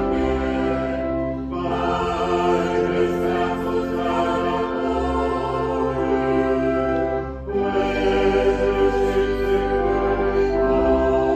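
Choir singing a slow hymn with accompaniment, in long held chords that change twice.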